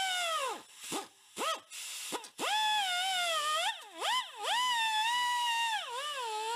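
Pneumatic die grinder whining as a small abrasive disc grinds the inside of the winch motor's steel housing. Its pitch sags each time the disc is pressed into the metal and climbs back as it is eased off, with a few short stops in the first couple of seconds before it runs on.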